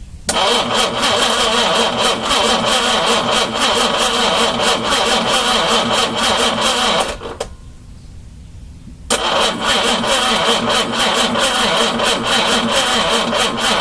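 Car's carburetted 4.2-litre engine cranked on the starter in two long runs, about seven seconds and then about five, with a short pause between. It is being turned over after 29 years without running, with freshly primed carburettors, and seems to want to catch.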